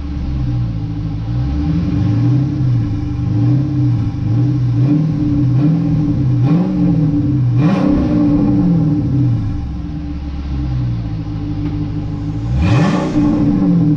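Dodge Charger R/T's 5.7 Hemi V8 running cold after a cold start, through an exhaust with the mid muffler (resonator) deleted. Its pitch wavers up and down, with two short throttle blips about 8 and 13 seconds in.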